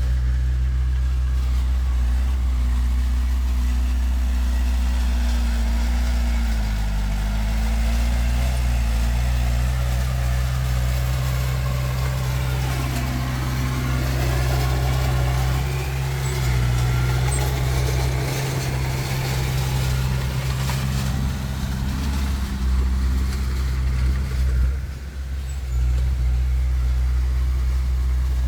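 Heavy diesel earthmoving machinery running steadily with a deep engine drone, its pitch shifting now and then, with a short drop in loudness about 25 seconds in.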